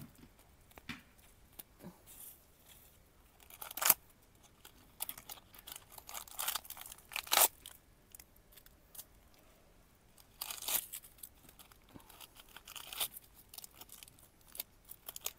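Pulled grama (Bermuda grass) and weeds rustling, tearing and crunching in irregular bursts, the loudest about 4 and 7.5 seconds in.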